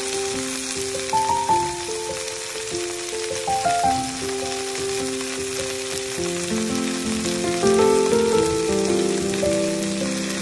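Water spinach (kangkong) sizzling and crackling in a hot pan as it cooks, with a steady hiss. Background music plays over it: a melody of held notes that grows fuller about six seconds in.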